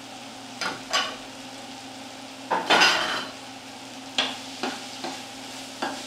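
Chopped vegetables (tomatoes, green peppers, onion and garlic) sautéing in oil in a pan, sizzling steadily, while a cooking utensil stirs them, knocking against the pan several times, with one longer, louder scrape about two and a half seconds in.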